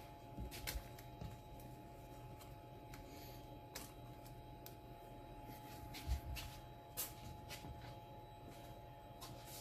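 Quiet workshop room tone: a faint steady hum with a few soft scattered clicks and knocks. The CNC router is not heard cutting.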